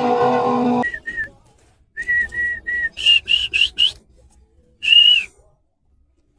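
A person whistling a series of short, sharp notes: two, then three at one pitch, then four quick higher ones, then one more. The whistling is meant to call a swarm of stinging insects out of a box. A louder pitched sound from another scene cuts off under a second in.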